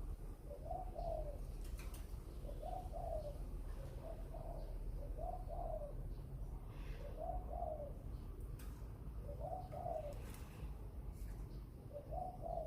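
A bird cooing: a short, low, dove-like two-part coo repeated about every second or two, over a steady low background rumble.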